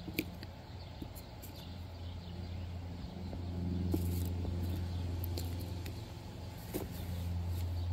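An engine's steady low hum, growing louder about three seconds in, with a few light clicks and crinkles from quartz crystals being handled on a plastic tarp.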